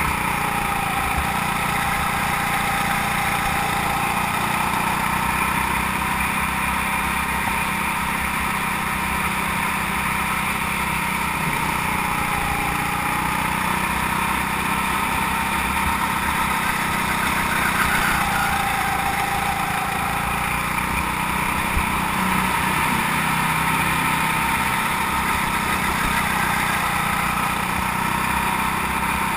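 Go-kart engine running hard on track: its note dips for a moment and climbs back several times as the kart brakes for corners and accelerates again.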